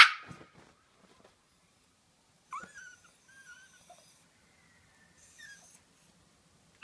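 Yorkshire terrier giving a sharp high bark, then a few faint high whines a couple of seconds later, and another sharp bark near the end.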